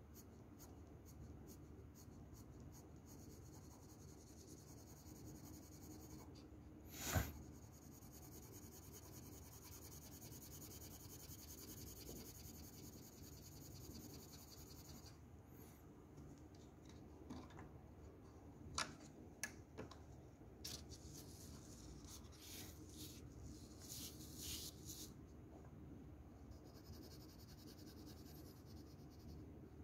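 Shading pencil strokes on paper: faint, scratchy back-and-forth scribbling that comes and goes in patches. A single louder knock about seven seconds in, and a few light clicks around twenty seconds in.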